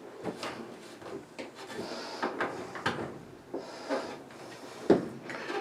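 Irregular plastic clicks and knocks as a replacement washing-machine switch is handled and pushed into its mounting, with the loudest knock about five seconds in.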